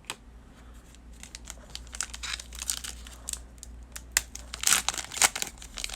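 Plastic foil wrapper of a pack of baseball cards being crinkled and torn open, a run of dry crackles that grows busier and louder near the end.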